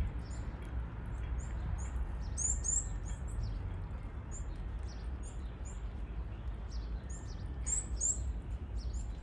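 Birds chirping and calling: many short, high, quick notes repeated throughout, over a steady low background rumble.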